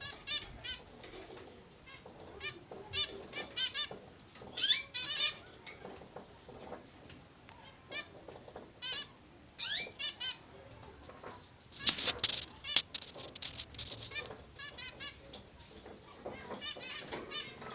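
Zebra finches chirping in quick runs of short, high calls, with a brief louder rustle about twelve seconds in.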